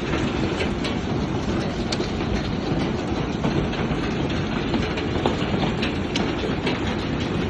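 Hailstorm: a steady roar of heavy rain and hail, with many irregular sharp cracks of hailstones striking hard surfaces.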